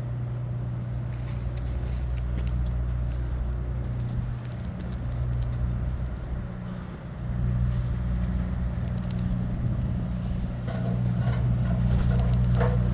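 Vehicle engine running at a steady idle, a low hum that dips briefly twice.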